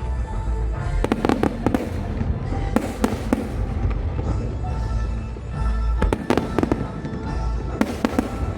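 Fireworks bursting with a low rumble throughout, and four volleys of sharp crackling: about a second in, around three seconds, around six seconds, and near the end. Music plays underneath.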